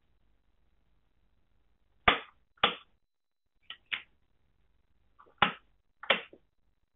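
Industrial push buttons on a PLC training panel clicking as they are pressed and released: sharp clicks in three pairs. Each press steps the sequence and switches the panel's pilot lamps.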